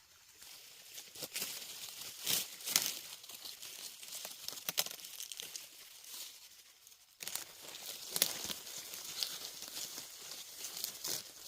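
Corn plants rustling and crackling as ears are picked by hand, with irregular snaps and tearing of leaves and husks.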